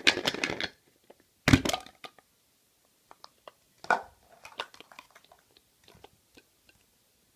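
Surprise egg being opened by hand, crinkling and cracking: a burst of crackling at first, one loud crack about a second and a half in, then scattered small clicks and rustles.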